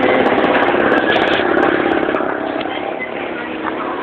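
A vehicle engine running amid street noise.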